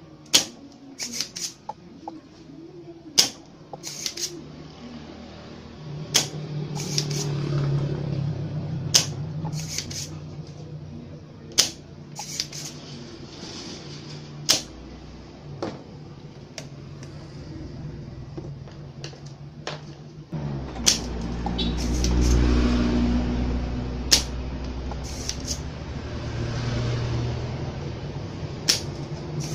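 Spring-loaded desoldering pump (solder sucker) snapping sharply again and again at irregular intervals, sometimes twice in quick succession, as it is cocked and fired to pull solder from the pins of the amplifier's control potentiometers. A low rumble swells twice in the background.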